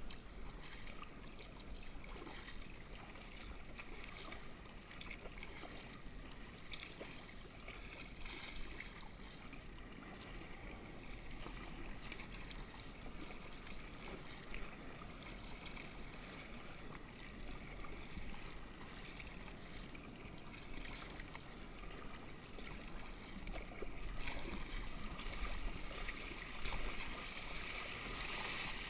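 Sea kayak moving through open ocean under paddle: water rushing and splashing along the hull and paddle blades dipping. It grows louder near the end as the bow throws up spray.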